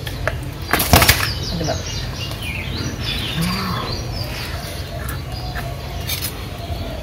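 A large tilapia being handled and shifted against a wooden-board boti blade on a concrete floor: a short burst of sharp scraping clicks about a second in, then quieter handling. Birds chirp in the background.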